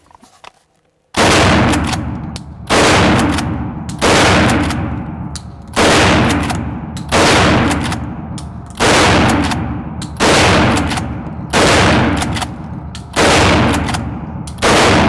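Mossberg 590M 12-gauge pump-action shotgun fired ten times in steady succession, starting about a second in, about one shot every second and a half, with the pump worked between shots. Each blast rings on in an indoor range. The magazine feeds every round without a jam.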